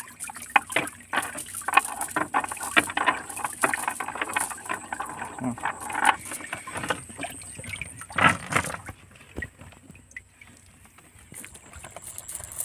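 A wet fishing net is hauled and worked over a wooden boat's water-filled hold: water splashing and dripping, with a run of knocks and clatters. It goes quieter after about nine seconds.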